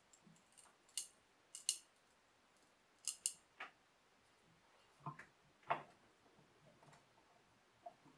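Faint metallic clicks and clinks of a thin aluminium strip against steel vise jaws as it is handled and bent by hand, a few light, sharp clinks followed by some duller knocks about halfway through.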